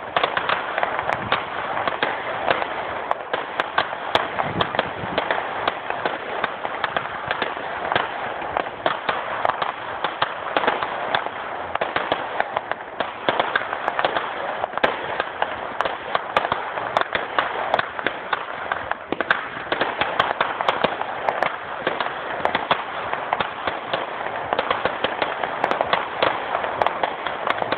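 Fireworks going off in rapid succession: a dense, unbroken crackle of sharp pops.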